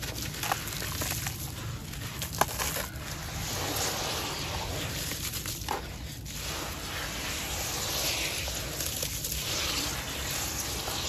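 Hands crushing and kneading gritty sand-cement chunks in a tub of muddy water: continuous wet sloshing and squishing with crunching grit, and a couple of sharp clicks in the first few seconds.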